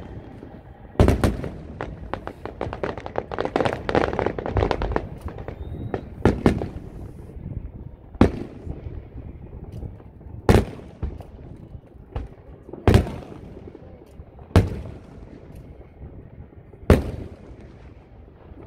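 Aerial fireworks shells bursting in a display, with about seven sharp booms a couple of seconds apart. A dense run of rapid crackling comes in the first few seconds.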